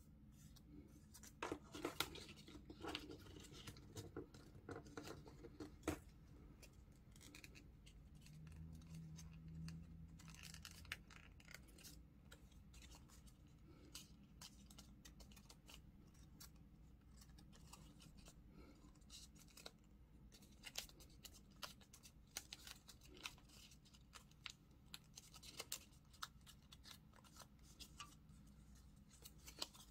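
Faint rustling and crackling of printer paper being folded and creased by hand, in scattered short crinkles, busiest in the first few seconds and again in the last third.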